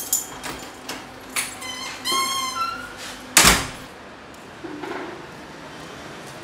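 Keys working an apartment door's lock with a series of clicks, a short high squeak from the door, then the door shuts with a loud bang about three and a half seconds in. A faint street background follows.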